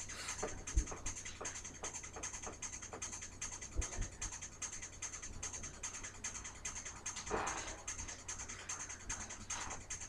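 Mostly quiet room with a few faint taps, then one short breathy puff about seven seconds in: a blow through a straw blowgun firing a bamboo dart.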